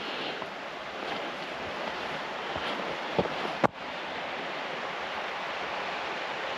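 Steady rushing outdoor background noise. A sharp click a little past halfway is followed by a brief drop in level.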